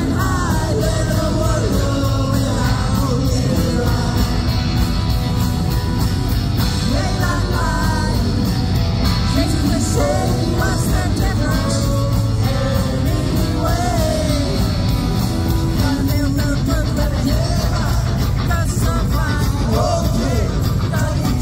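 Live rock band playing loudly: a male lead singer over drums and amplified instruments.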